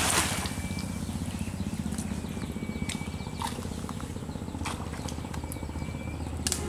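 The tail of a cast net's splash into the pond right at the start, then a steady low rumble with a few faint clicks and short high whistles while the net sinks.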